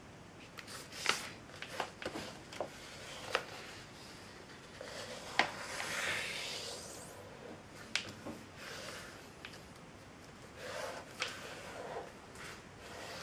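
A sheet of printer paper being folded and creased by hand on a tabletop: rustling and fingers rubbing along the folds, with several sharp crackles, and a longer swish about halfway through.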